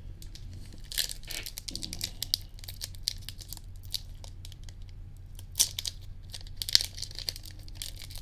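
A Pokémon booster-pack wrapper crinkling and tearing as it is worked open by hand, with the pack hard to open. It gives a continuous run of sharp crackles, with louder bursts about halfway through and again near the end.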